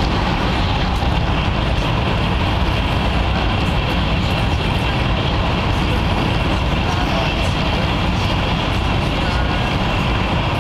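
Steady cabin noise inside a Taiwan High Speed Rail 700T trainset running at high speed: an even rumble and rushing hiss with no break.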